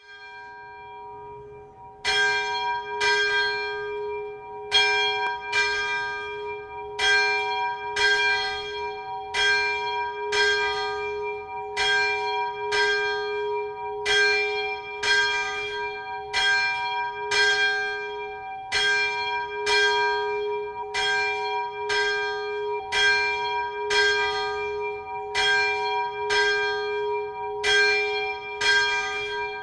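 Catholic church bell tolling, struck about once a second, with a low hum ringing on between strokes. The strokes start about two seconds in, after a faint lingering hum.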